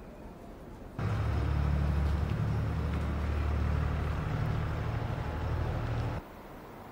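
Small tractor's engine running with a low, steady drone; it cuts in suddenly about a second in and cuts off suddenly about five seconds later.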